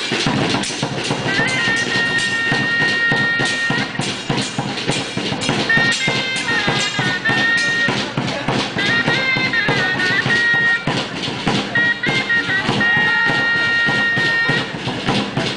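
Chirimía (double-reed shawm) playing a shrill melody of long held high notes joined by short ornamented turns, over steady drumbeats.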